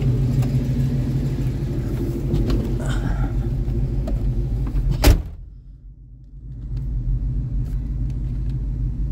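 Chevy 350 small-block V8 with headers idling steadily on a partly-on choke. About five seconds in a truck door slams shut, the loudest sound, and the engine briefly sounds muffled before coming back up.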